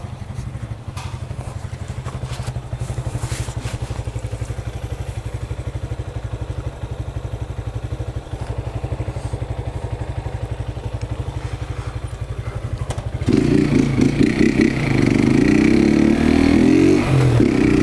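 Honda CG single-cylinder motorcycle engine idling with a steady pulsing beat, with a few clattering knocks from the delivery bag being handled in the first four seconds. About 13 seconds in it gets much louder and its pitch climbs and shifts as the bike pulls away and accelerates. The cover over the air-intake duct has been pulled off with the filter left in, which gives the louder intake sound.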